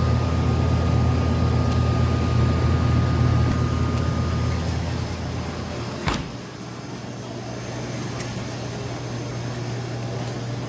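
Steady low hum of a car on the move, heard from inside the cabin. A faint steady whine fades out partway through, a single sharp click comes about six seconds in, and after it the hum carries on quieter and thinner.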